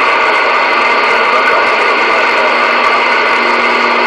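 Loud, steady static hissing from a CB radio's speaker while the channel is open on a weak long-distance skip signal.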